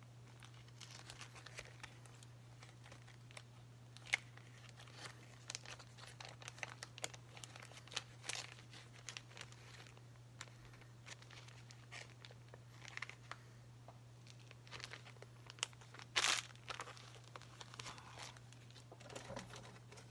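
Faint rustling and crinkling of hands working white marabou feather and thread onto a crappie jighead clamped in a tying vise, in scattered short rustles with the loudest about sixteen seconds in.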